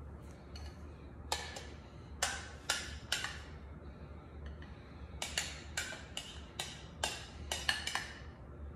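Spatula clicking and tapping as vanilla pastry cream is scooped from a bowl into a piping bag: a string of short, sharp clicks, a few at first and then quicker for several seconds near the end, over a steady low hum.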